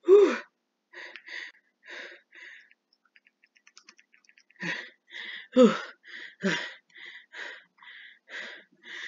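A runner panting hard: short breaths about twice a second, some of them voiced gasps, with a pause of about two seconds partway through.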